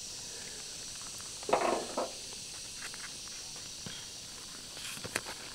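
Steady, high-pitched insect chirring in the background, with a brief rustle about a second and a half in and a few light clicks near the end.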